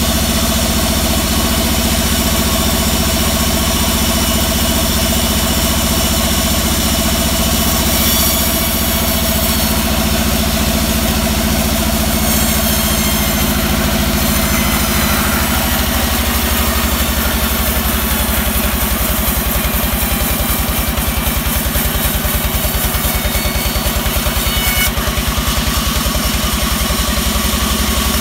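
Large sawmill band saw running steadily while a teak log is fed through it and ripped lengthwise into a board.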